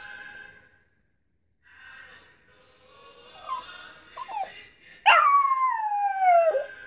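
Yorkshire terrier howling along to a song. There are short whines about three and a half and four seconds in, then one loud howl about five seconds in that slides steadily down in pitch for about a second and a half.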